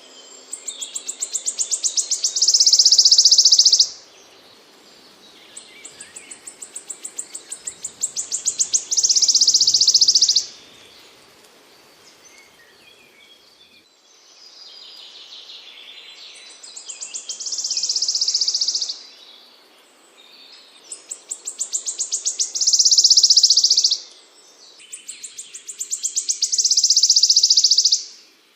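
A small songbird singing the same high song about five times over: each phrase is a run of sharp notes that speeds up into a fast buzzy trill of several seconds, then breaks off before the next.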